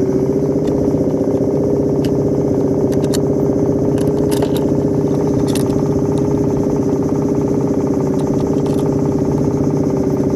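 Suzuki 2.5 hp four-stroke outboard motor running steadily at a constant speed, pushing a small wooden boat. A few light clicks sound over it midway.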